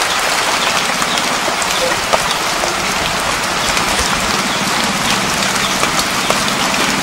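Heavy rain falling steadily, an even hiss dotted with many small drop ticks.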